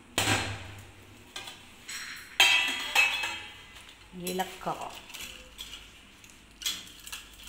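Stainless steel spice box lid being lifted off and set down, with several metallic clanks and clinks. The loudest comes about two and a half seconds in and rings briefly, and lighter taps follow as fingers go among the small steel cups inside.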